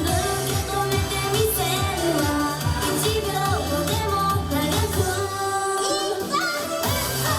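Upbeat Japanese pop song played loud, with singing over a pulsing bass line; near the end the bass drops out for about two seconds, then the full backing comes back in.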